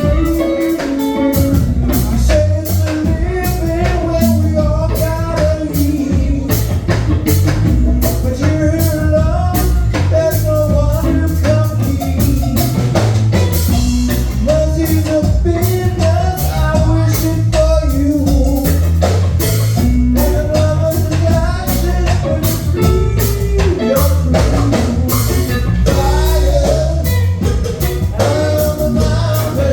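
Live band playing, with a drum kit keeping a steady beat under a wandering melodic line.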